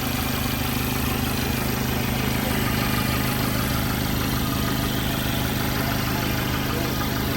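Mercedes-Benz C300 car engine idling steadily.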